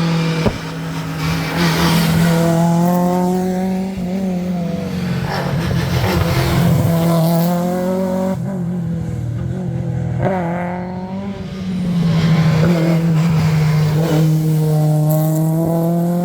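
Rally car engine running hard at high revs, pitch climbing through several gears and dropping back between pulls. There is a sharp crack about half a second in.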